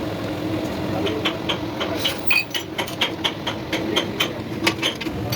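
Rapid hammer blows on steel, about four a second from a second in, each with a short metallic ring, over a steady machine hum.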